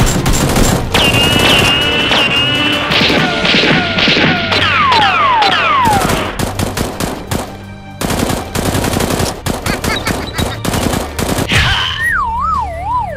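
Rapid automatic-gunfire sound effects dubbed over toy blaster shooting, in long runs of quick shots over background music, with several falling whistles in the middle. Near the end the shots stop and a wobbling, falling tone takes over.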